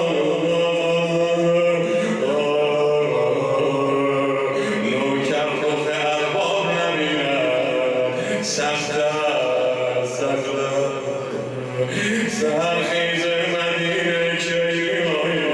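A man chanting a Persian devotional elegy (noha) solo, in long, wavering sung lines held on sustained notes with short breaks between phrases.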